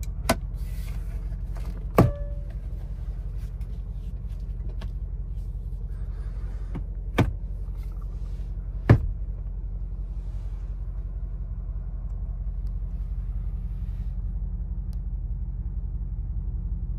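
The 4.0-litre twin-turbo V8 of a 2024 Mercedes-AMG G63 idling with a steady low rumble. Four sharp clicks cut through it, the loudest about two and nine seconds in.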